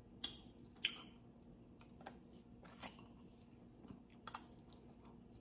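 A person chewing a mouthful of tender stewed beef, close to the microphone: quiet wet mouth sounds with a few short sharp clicks scattered through.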